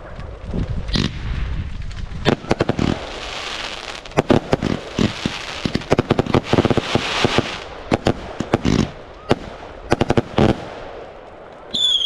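Fireworks going off, likely Roman candles: a rapid, irregular string of sharp bangs and crackles over a hiss. Near the end a whistling firework sounds, falling in pitch.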